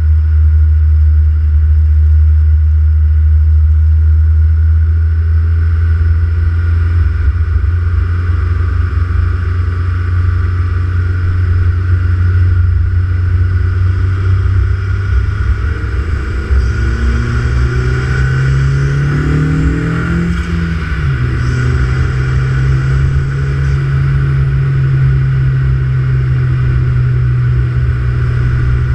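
Turbocharged car engine with an open Pipercross intake filter idling steadily. About halfway through, its revs rise and sweep up and down for a few seconds, then settle at a steady, higher speed.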